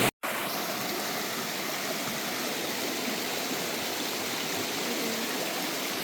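Steady rushing of a mountain stream flowing over rocks, starting abruptly just after a cut.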